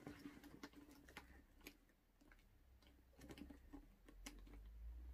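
Faint, scattered clicks of a small key working in a Michael Kors handbag's metal padlock, which does not open. A faint low hum lies underneath.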